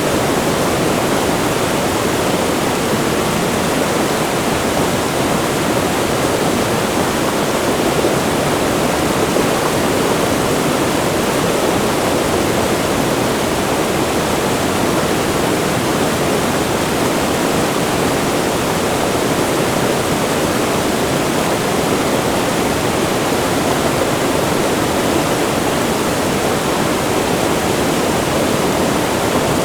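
A wide, fast-flowing river rushing close to a waterfall: a loud, steady rush of water with no breaks, heaviest in the lower-middle range.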